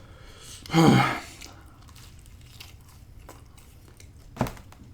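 A person chewing and biting pizza close to the microphone, with soft small mouth clicks. About a second in a short pitched vocal sound falls in pitch, and a sharp click comes near the end.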